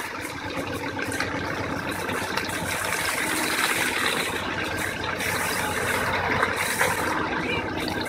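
Komatsu backhoe loader's diesel engine running steadily.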